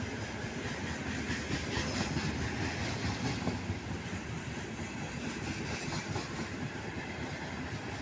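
Loaded open freight wagons of a passing train rolling along the track, their wheels rumbling and clattering steadily with a few light clicks.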